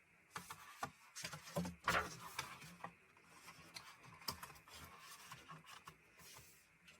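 Hands handling a music album's contents: soft rustling of paper and plastic with scattered light clicks and taps.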